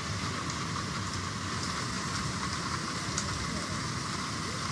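Floodwater rushing in a steady torrent: a continuous, even roar of water with a low rumble beneath it.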